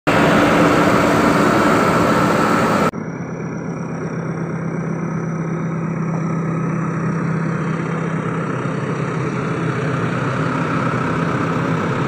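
JCB backhoe loader's diesel engine running steadily at close range. About three seconds in, a very loud, hissy stretch cuts off abruptly to a slightly quieter, even engine sound.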